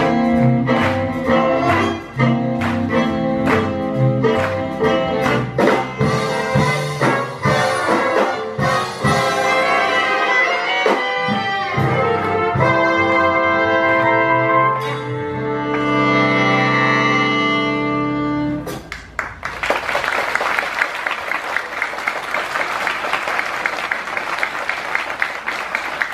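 Big band jazz: saxophones, trumpets and trombones play accented figures over drum kit hits, then hold a long final chord that cuts off about two-thirds of the way in. Audience applause follows.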